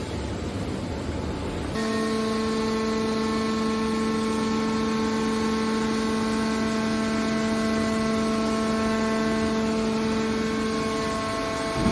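Metal baler machinery running: a steady machine noise, joined about two seconds in by a steady, even hum that holds one pitch, typical of a hydraulic pump and motor under way.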